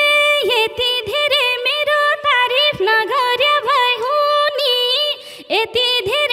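Flute playing a solo melodic interlude. A held high note opens into a quick run of ornamented notes with small dips between them. About five seconds in it breaks off briefly and swoops back up into the line.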